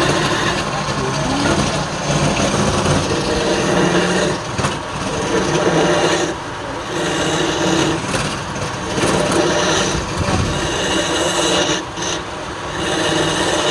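Wood lathe running while a tool is pressed against the spinning wood, scraping it in passes of one to three seconds with short breaks between.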